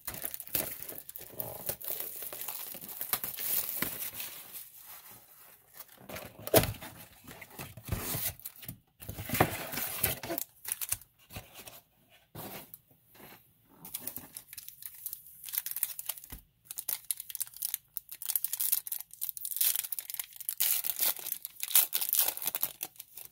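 Foil wrappers of 2019 Topps Chrome Update baseball card packs crinkling and tearing as the packs are handled and opened, in irregular bursts with short pauses.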